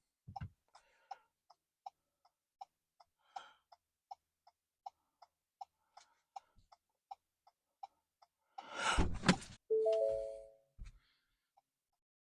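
Ford Maverick turn-signal indicator ticking steadily, about four ticks every three seconds. This is a normal flash rate, showing the new LED bulbs are not hyperflashing. Near nine seconds comes a louder thump and rustle, followed by a brief tone of a few pitches.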